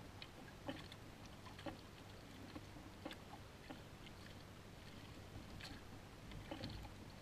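Faint water sloshing around a fishing kayak, with scattered light clicks and knocks from rods and a reel being handled.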